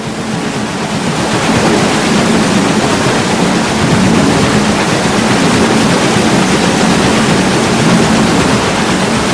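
Water pouring and splashing at a watermill as the mill is set going, swelling over the first couple of seconds and then rushing steadily.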